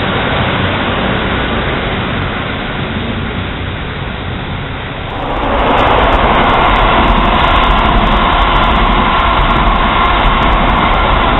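A Class 150 diesel multiple unit pulling away, its noise fading over the first few seconds. About five seconds in it changes suddenly to the louder, steady running of an HST's Class 43 diesel power car alongside the platform.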